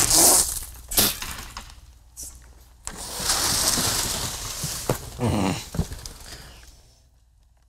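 Cardboard box and packing paper handled and rustled as the box is opened. It starts with a sharp crackling burst, has a longer rustle in the middle, and dies away near the end.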